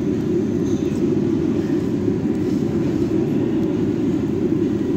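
Steady low rumble of a ventilation fan, even in level and without breaks.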